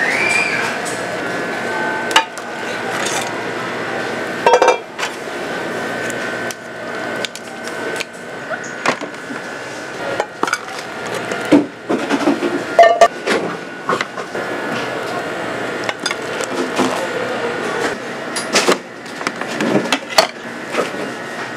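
Kitchen clatter at a street-food stall: repeated knocks and clinks of utensils, pots and dishes, irregularly spaced, over a steady background hum.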